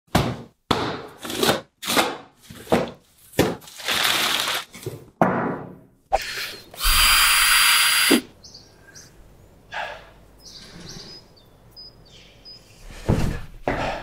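A cardboard box is handled and opened: a quick string of rustles and thumps for about six seconds. A Makita cordless drill then runs steadily for just over a second and stops abruptly.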